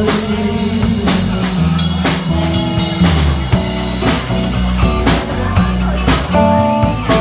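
Live band playing an instrumental passage of a pop ballad: a drum kit keeps a steady beat of about two strikes a second over bass and sustained chords.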